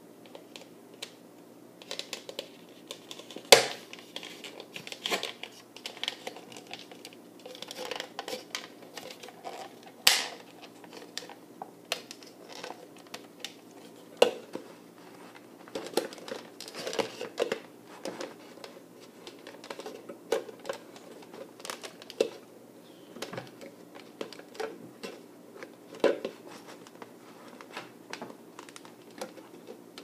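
Handling of a plastic cup and thin coated wire: irregular small clicks, taps and crinkles, with two sharper knocks about three and a half and ten seconds in.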